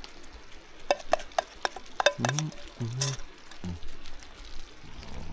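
Metal utensil clinking and scraping against a camp cooking pan as food is dished out, with several sharp clinks in the first three seconds over a faint sizzle.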